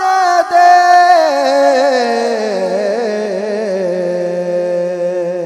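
A man singing a naat without instruments, holding the refrain's last note: the pitch slides down over the first couple of seconds, then is held steady.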